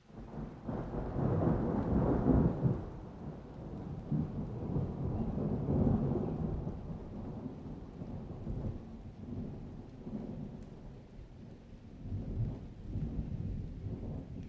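Rolling thunder over heavy rain. It starts abruptly, is loudest in the first few seconds, eases off, then swells again near the end.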